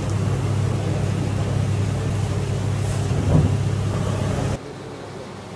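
Steady low mechanical hum of kitchen machinery, with a brief louder noise a little past three seconds in; the hum cuts off suddenly about four and a half seconds in.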